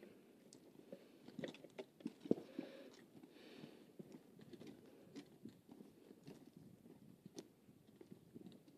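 Faint, irregular crunching and scuffing of hiking boots on a loose gravel and limestone scree path, with scattered sharp clicks.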